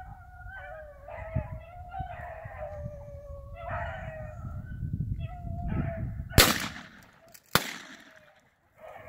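A pack of beagles baying on a rabbit's trail, long overlapping howls. Then two gunshots about a second apart, the loudest sounds here.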